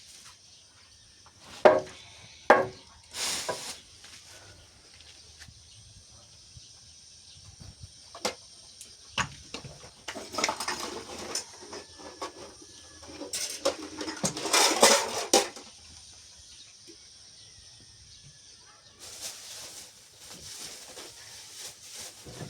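Knocks and clatter of household objects being handled: three sharp knocks in the first few seconds, then two longer bouts of clattering around the middle.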